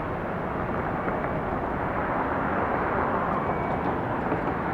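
Jet airliner's engines at takeoff power during the takeoff roll and liftoff, heard as a steady rushing noise.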